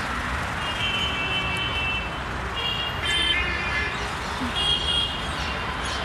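Steady city traffic noise, with three short high-pitched tones about one, three and five seconds in.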